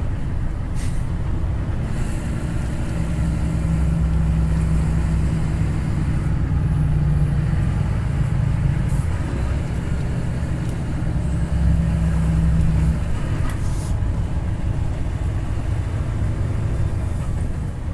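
Truck engine running under light load with tyre and road noise, heard inside the cab while driving slowly. The low engine note grows stronger a few seconds in and eases back a few seconds before the end.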